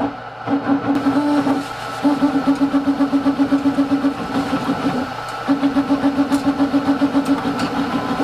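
Background music: a low note pulsing quickly and evenly, in phrases broken by short pauses.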